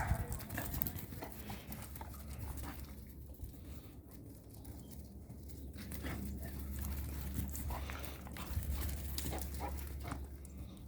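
Dog sounds: short, scattered noises, the loudest right at the start, over a steady low rumble.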